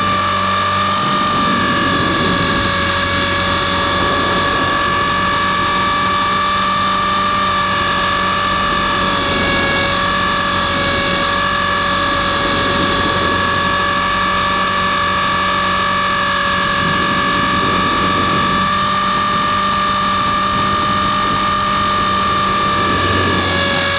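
Trex 450-clone RC helicopter in flight, heard from a camera mounted on its airframe: a steady, high motor and gear whine over the rush of the rotor, its pitch dipping slightly now and then as the helicopter manoeuvres.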